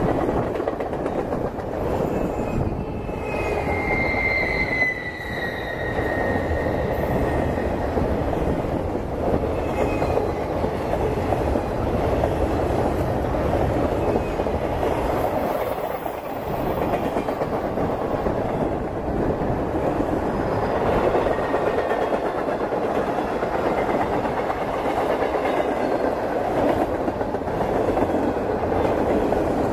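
Freight train of loaded DODX flatcars passing at speed close by: a steady rumble and clatter of wheels on the rails. A brief high wheel squeal, falling in pitch, comes about three seconds in.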